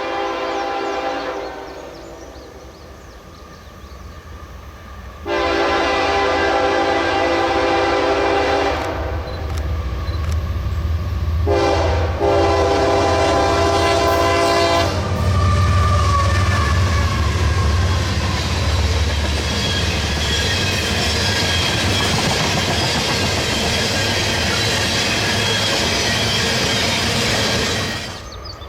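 CSX freight locomotive horn sounding a series of long blasts as the train approaches. Then the locomotives pass close with a heavy low rumble, and the cars roll by with steady wheel and rail noise.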